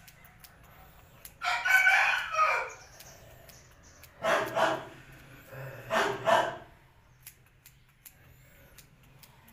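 Rooster crowing three times, the first call the longest and falling in pitch, the next two shorter.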